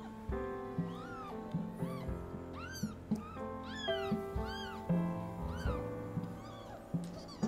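Newborn kitten mewing, about eight short high-pitched cries that each rise and fall in pitch, with soft piano music underneath.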